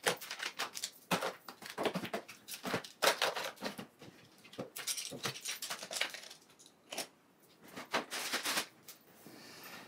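Makeup products and plastic cases being picked up and set down on a vanity countertop: a busy run of small clicks, taps and clatters, thinning out over the last few seconds.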